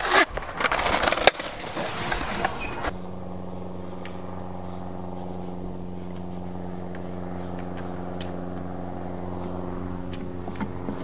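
Skateboard wheels rolling on a concrete bowl with clacks and a sharp hit about a second in. About three seconds in this cuts off to a steady, even hum made of several held tones, with a few faint ticks.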